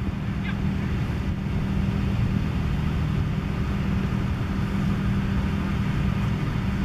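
A steady low motor hum with an even pitch and no change in level.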